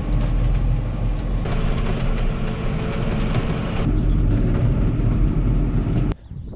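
John Deere 7220 tractor's diesel engine running as it drives, heard from the cab. The engine sound steps up twice, about a second and a half in and again near four seconds, then cuts off abruptly shortly before the end.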